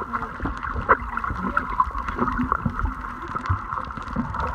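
Muffled underwater sound heard through a submerged camera: bubbling and churning water from swimmers kicking nearby, with scattered small clicks and a low rumble.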